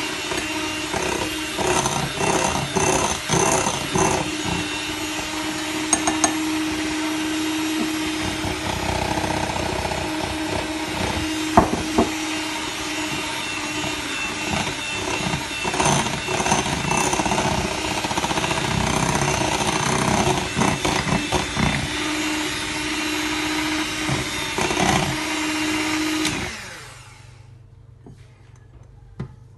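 Electric mixer running steadily, beating sponge cake batter, with occasional knocks. It is switched off near the end and its motor winds down, falling in pitch.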